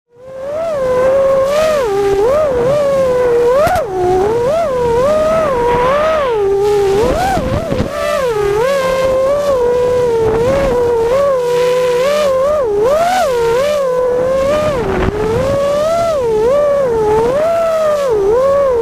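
A small, high-revving motor whining continuously, its pitch gliding up and down about once a second as the throttle is worked.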